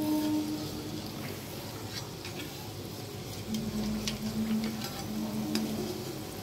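Bread gulab jamun balls deep-frying in oil in a kadhai: a steady sizzle with scattered small pops and crackles. A low steady hum comes and goes underneath.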